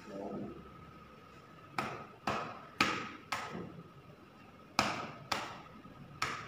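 A wooden stick tapping on a hardcover book: sharp taps in pairs about half a second apart, seven in all, starting a couple of seconds in.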